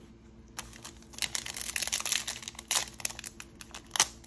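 Foil wrapper of a hockey card pack crinkling as it is handled and torn open by hand, in a rapid run of crackles for a couple of seconds, with a sharp snap near the end.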